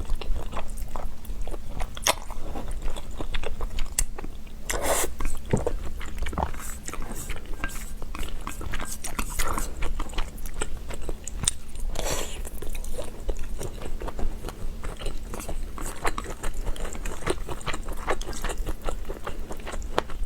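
Close-miked mouth sounds of someone eating spicy buldak instant noodles: steady chewing with many small wet clicks, and two longer noisy sounds about five and twelve seconds in.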